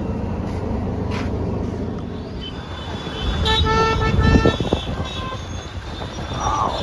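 A vehicle horn sounding in a few short toots about three and a half seconds in, over a steady low rumble of engines and street noise.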